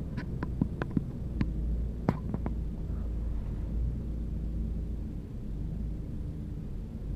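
2011 Ford EcoBoost engine idling roughly just after startup, a low, uneven running hum, the fault the owner is filming. A few sharp clicks come in the first two and a half seconds.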